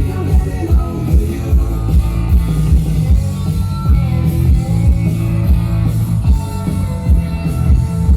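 Rock music with electric guitar and a steady drum beat, played loud over a sound system.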